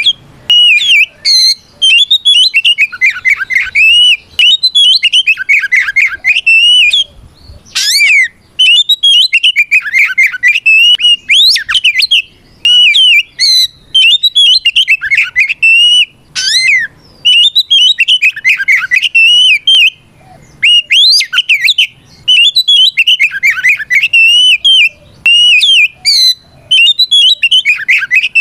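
Oriental magpie-robin (kacer) singing loudly in rapid phrases of varied whistled notes, each phrase lasting a second or two, with brief pauses between. It is the bird's full, open fighting song, calling out a rival.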